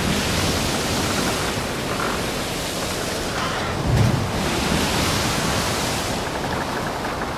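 Wind buffeting an outdoor microphone over a steady rushing hiss, with a stronger gust of low rumble about four seconds in.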